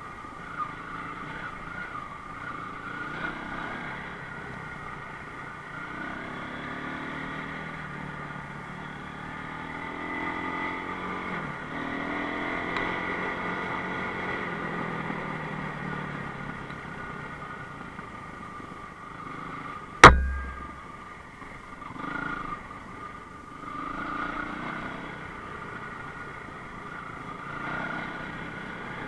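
Enduro motorcycle engine running, its revs rising and falling. A single sharp, loud knock comes about twenty seconds in.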